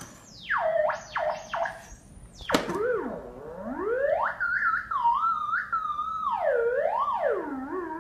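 Theremin sliding up and down in pitch as a cat paws at its pitch antenna. It plays wavering glides with no settled notes.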